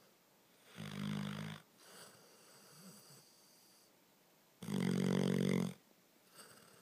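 Snoring: two loud, rattling snores about four seconds apart, each lasting about a second, with softer breathing sounds between them.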